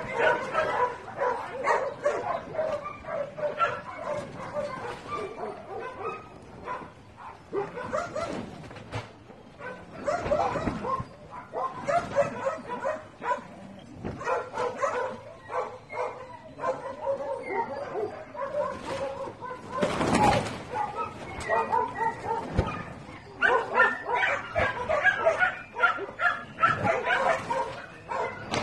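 Several dogs barking and yelping, a continuous chorus of short barks. A brief, louder noise comes about twenty seconds in.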